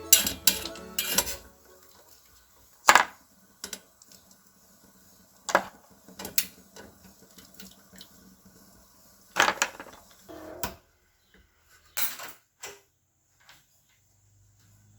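Dishes and utensils being handled, with about a dozen sharp clinks and clatters at irregular intervals and quiet between them.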